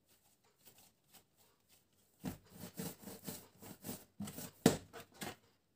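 Palms rolling a log of yeast bun dough back and forth on a kitchen countertop: a quick run of soft rubbing strokes starting about two seconds in, with one sharper knock near the end.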